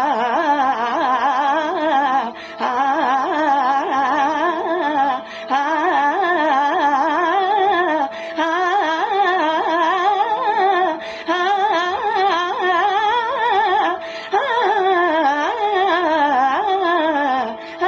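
A voice sings fast sargam runs in Indian classical style over a steady drone note. The pitch zigzags rapidly up and down in ornate passages, broken by short breath pauses every few seconds.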